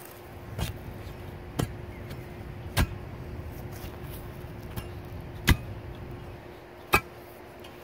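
Steel root-cutting bar (B'root Bar) jabbed down into a post hole, five sharp chopping strikes at uneven intervals as its blade hits and cuts through tree roots in the soil.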